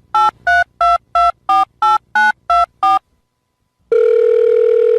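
Touch-tone telephone dialing: about ten short two-note keypad beeps, roughly three a second. About a second after they stop, a steady telephone ringing tone sounds for about two seconds.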